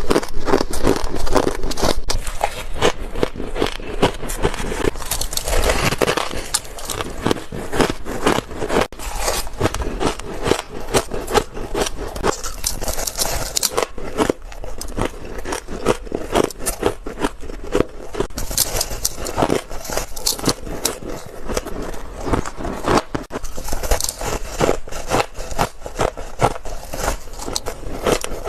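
Freezer frost being bitten and chewed close to a clip-on microphone: a dense, continuous run of crisp crunches and crackles.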